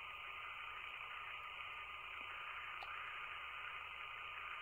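Steady background hiss with a faint, thin high tone through it: room and recording noise, with no distinct sound event.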